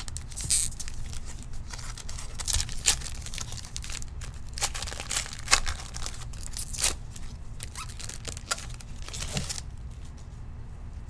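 A trading-card pack wrapper being torn open and crinkled, with cards handled, in a run of irregular crackles that dies down near the end.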